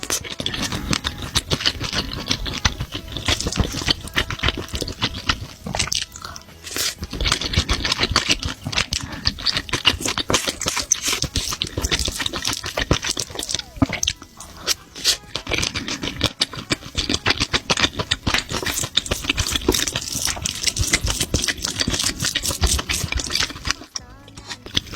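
Close-miked eating: steady wet chewing and mouth smacking on octopus and fried rice with seaweed, with dense, irregular clicks and brief pauses.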